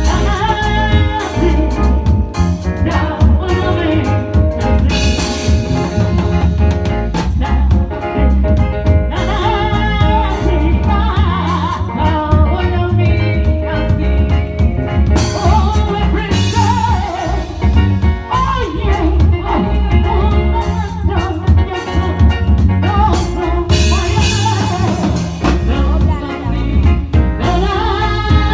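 A band playing a song, with a drum kit keeping a steady beat and a singer's voice over it, at a loud, even level.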